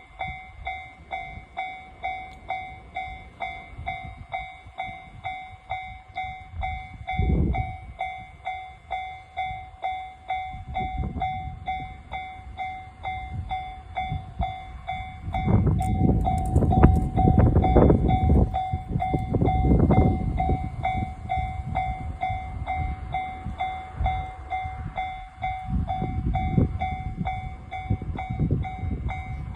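Japanese level-crossing warning bell ringing steadily, about two strikes a second, while a train passes over the crossing about halfway through, its rumble and wheel knocks the loudest part for several seconds.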